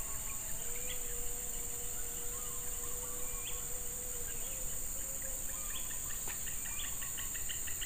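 Steady high-pitched insect drone, with scattered short bird chirps that turn into a quick run of repeated chirps near the end, and a single faint click about six seconds in.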